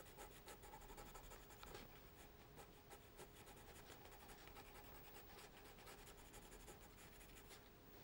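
Faint scratching of a water-soluble pencil making short hatching strokes on textured watercolour paper.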